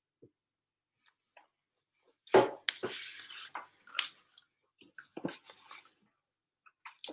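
A large hardcover picture book handled and a stiff page turned: a sharp knock about two seconds in, then a papery swish lasting about a second. A few light taps and clicks follow as the book is settled open again.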